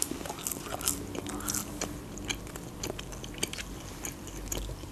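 Close-up chewing of a mouthful of pide flatbread: many small, sharp wet mouth clicks and crunches.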